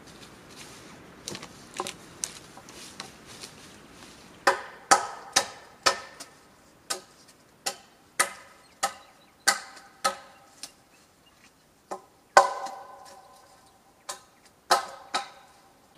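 Repeated sharp strikes of a hand tool on wood, coming in irregular runs of about two a second, several with a short ringing tone after the hit.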